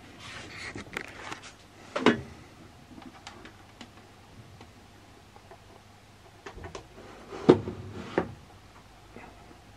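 A few short knocks and clunks, the loudest about two seconds in and two more close together near the end, with lighter clicks between, over a faint low hum.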